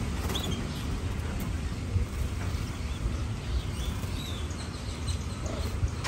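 Domestic canaries giving a few faint, short chirps over a steady low rumble.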